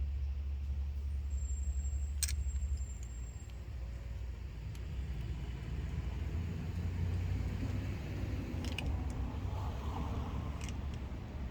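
A steady low rumble, with a few light metallic clicks of small parts being handled, spark plugs being gapped.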